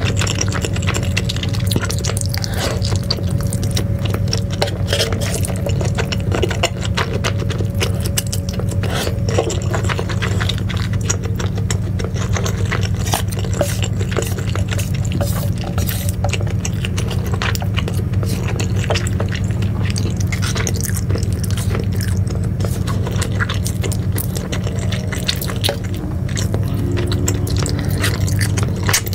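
Close-miked eating of cheese-sauced noodles: wet slurping and chewing, sticky squelches and chopsticks tapping and scraping the tray, with many small clicks throughout over a steady low hum.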